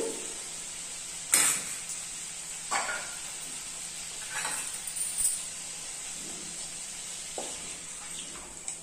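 Potatoes and spices frying in an oiled pan on a gas stove, sizzling steadily, with about five short clinks of a spoon and steel containers. Near the end, water is poured into the hot pan.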